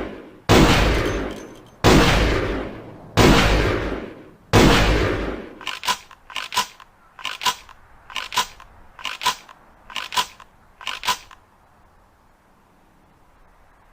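Ithaca Model 37 pump-action shotgun fired four times, about a second and a half apart, each shot with a long echoing tail. Then comes a run of about seven quick double metallic clicks from the gun's action being handled.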